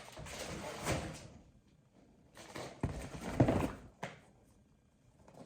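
Dog harness in its packaging being handled: two spells of rustling and handling noise, with a thump about three seconds in.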